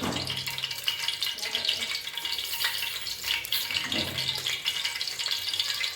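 Cooking oil hissing and sizzling in a pan heating on a gas stove, a steady hiss.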